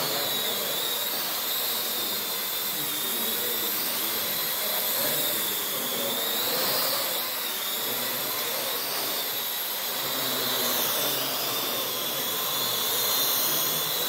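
Parrot AR.Drone quadricopter's four electric motors and propellers whirring in a steady high whine as it hovers and steers. The pitch wavers up and down as the drone adjusts its motors.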